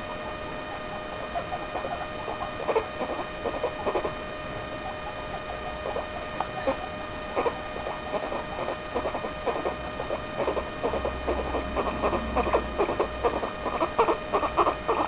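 Guinea pig giving many short, quick squeaks and chirps in an irregular run, over a steady electrical hum.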